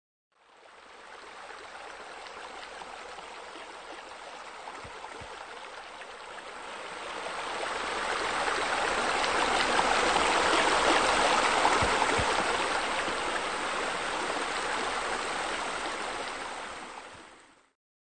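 Water from a pool's waterfall feature spilling and running steadily. It fades in, grows louder through the middle and fades out near the end.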